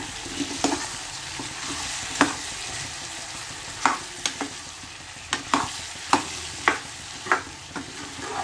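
Carrot, pea and potato sabzi frying in oil in a kadhai with a steady sizzle, while a metal ladle stirs it, scraping and knocking against the pan about ten times at uneven intervals.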